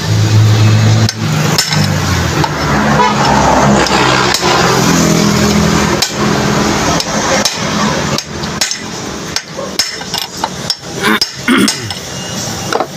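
Hammer blows on a long steel pipe used as a drift, driving a rear wheel bearing into the hub of a Bajaj RE three-wheeler: a run of sharp metal strikes, spaced wider at first and coming quickly one after another in the second half.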